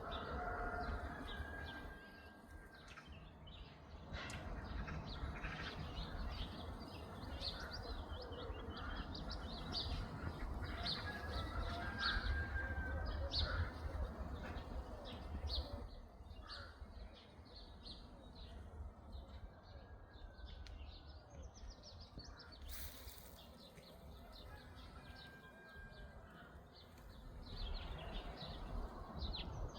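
Small songbirds chirping and singing in quick, repeated short notes, with a few brief whistled notes among them, over a low steady rumble.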